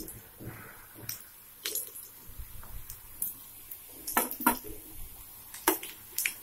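Steel slotted spoon clinking and tapping against a frying pan and a plate while batches of fried balls are lifted out of hot oil, with the sharpest knocks about four seconds in and again near the end. A faint sizzle of deep-frying oil sits underneath.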